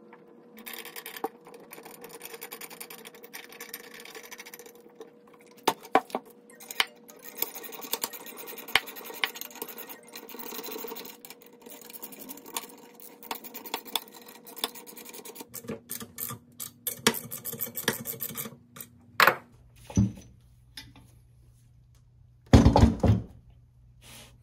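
Metal parts of a core drill stand being handled: scattered clinks and knocks with rubbing and scraping, and a few louder knocks near the end.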